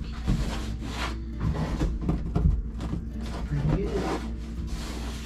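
Hand rubbing and scuffing along the epoxy-coated plywood edge where a kayak's deck meets its hull, in irregular strokes of varying length.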